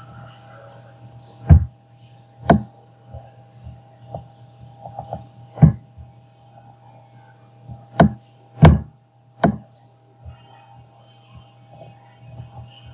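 Computer mouse clicking while a line is dragged on screen: about six sharp, separate clicks a second or more apart, with fainter ticks between. A steady low electrical hum runs underneath.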